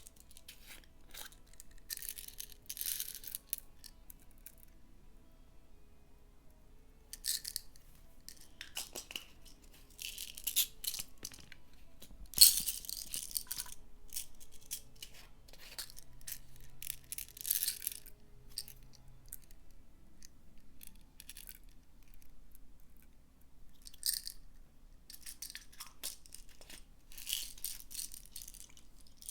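Slime being kneaded and stretched by hand to work in pigment: sticky, wet crackles and pops in irregular bursts, the loudest about twelve seconds in. Faint background music underneath.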